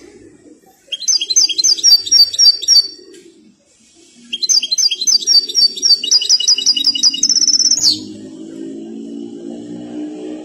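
European goldfinch (chardonneret) singing two phrases of quick, high repeated notes. The second phrase is longer and ends in a fast rising trill about eight seconds in. A lower, steadier sound runs underneath for the last couple of seconds.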